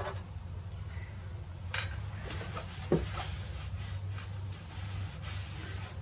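Soft pastel rubbing and scratching in short strokes across the paper, with a single knock about three seconds in, over a steady low hum.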